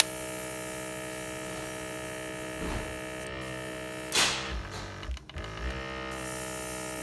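A steady electric hum, many even tones held level throughout, like a small motor or compressor running. A brief rushing noise comes about four seconds in, with a fainter one just before three seconds.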